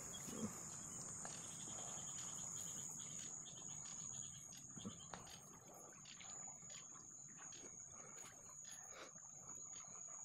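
Steady high-pitched insect buzz that holds one pitch, with faint rustling and light clicks from hands handling a mesh shrimp trap.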